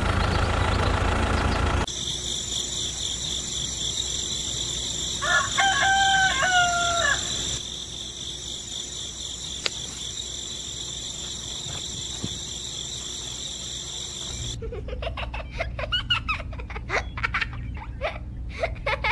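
A rooster crowing once, about five seconds in, for roughly two seconds, over a steady high-pitched ringing. Near the end, a rapid run of sharp clicks.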